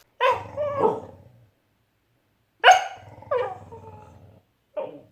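Corgi barking: a drawn-out, wavering bark near the start, then three short, sharp barks.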